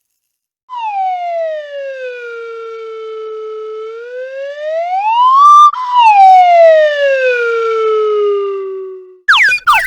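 Cartoon sound effect: a buzzy, siren-like pitched tone that slides down, holds low, rises to a peak about five seconds in, then slides slowly back down. Near the end a different effect begins with quick up-and-down whooping glides.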